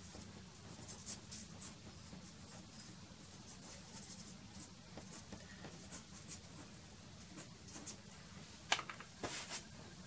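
Soft pastel stick scratching on black pastel paper in many short, light strokes, with a few sharper, louder strokes near the end.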